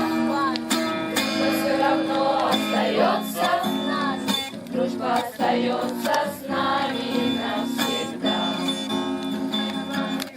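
A song with singing voices over guitar accompaniment, playing continuously.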